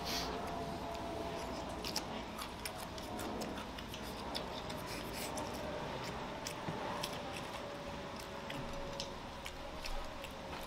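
A person eating with chopsticks: close chewing and small clicks of chopsticks against a bowl, over a steady background hiss.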